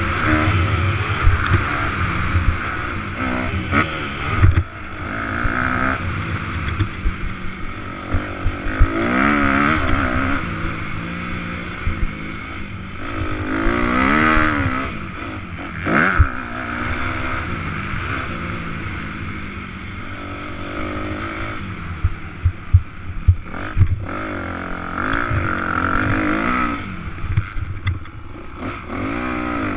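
Motocross dirt bike engine heard up close on board, revving up and falling back again and again as it races around a dirt track, with a steady rush of wind and frequent sharp knocks.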